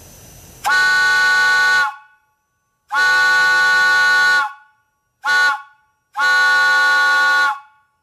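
Lunkenheimer 2 x 4-1/2 inch three-chime brass whistle blown four times, long, long, short, long: the grade-crossing signal. Each blast is a loud, steady chord of three notes that stops cleanly. A soft hiss comes before the first blast.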